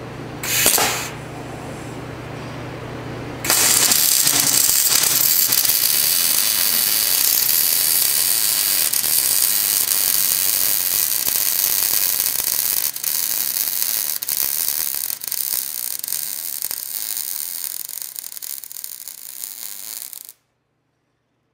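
Millermatic 255 MIG welder's arc crackling steadily as one continuous bead is run on steel, starting about three and a half seconds in and cutting off suddenly near the end. Before it there is a low hum and a brief burst of arc about half a second in.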